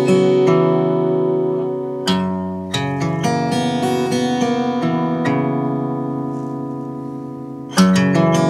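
Acoustic guitar music: chords strummed and left to ring and fade, with picked notes between them. There is a fresh strum about two seconds in and another near the end.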